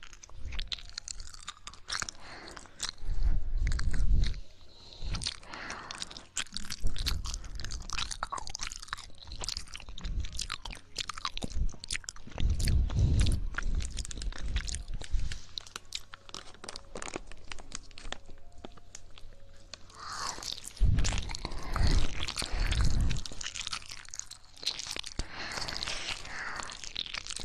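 ASMR ear-licking mouth sounds: many wet clicks, licks and smacks close to the microphone, with deeper muffled swells three times.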